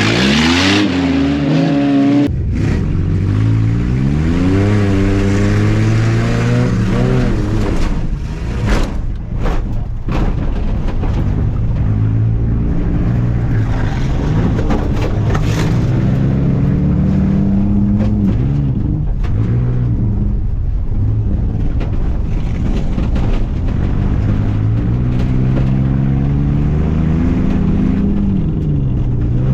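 An off-road truck's engine revving, its pitch climbing and falling again and again as the throttle is worked. A couple of sharp knocks come about nine seconds in.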